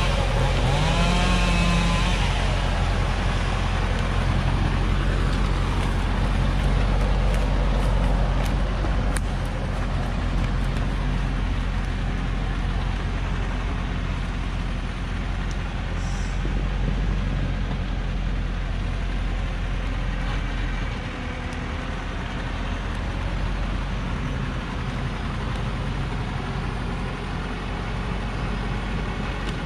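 Loaded Hoa Mai logging truck's diesel engine running steadily under load, growing slowly fainter as the truck pulls away. A brief wavering tone near the start and a few sharp clicks around eight to ten seconds in.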